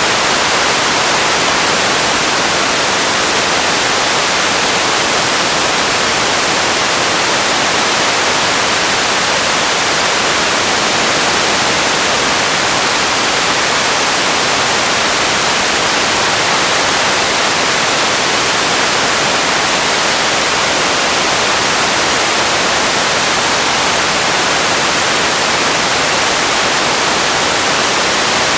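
Steady, unchanging hiss of static-like noise, strongest in the upper range and thin in the bass.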